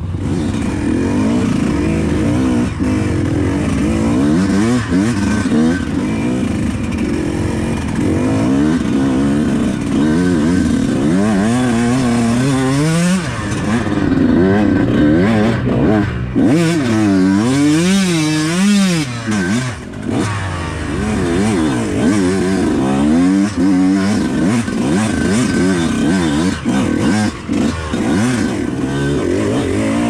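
Yamaha YZ125X two-stroke single-cylinder dirt bike engine, revved up and down again and again under the rider's throttle, with occasional short knocks.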